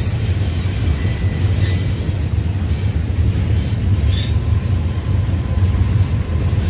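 Double-stack intermodal freight train rolling past: a steady low rumble of wheels and cars on the rail, with faint clicks and a faint wheel squeal that comes in about halfway.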